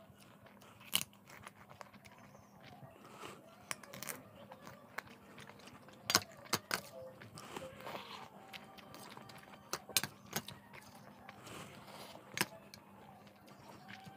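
Crisp sago papad crunched between the teeth close to the microphone, in irregular sharp snaps and crackles with quieter chewing between.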